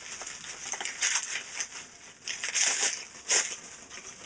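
Crinkling of a clear plastic bag as it is handled and opened, in several short bursts.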